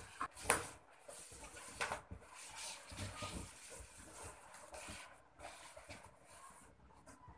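Inflated latex balloons rubbing and squeaking against each other as hands press and twist them into a cluster. The rustling is irregular, with two sharper sounds about half a second and two seconds in.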